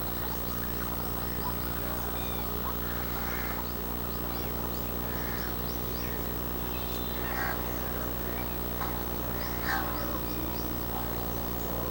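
Eurasian coots calling: short, separate calls every second or two, with faint high chirps in between, over a steady low hum.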